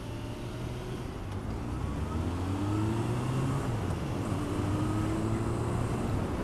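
Motorcycle engine pulling away from a roundabout, its pitch climbing, dropping back about four seconds in and climbing again, over steady road and wind rush.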